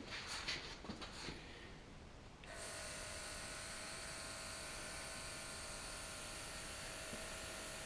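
A few light handling clicks, then about two and a half seconds in a small airbrush air compressor switches on and runs steadily, a motor hum with an even hiss of air.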